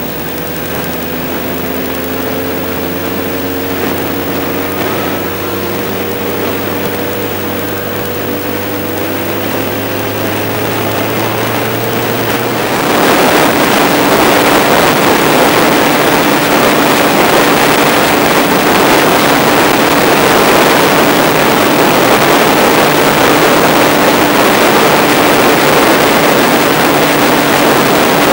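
Motorcycle engine and wind rush heard from a camera mounted on the bike while riding. At first the engine note climbs slowly as the bike pulls. About halfway through, the sound changes abruptly to a loud, steady rush of wind with an even engine note beneath.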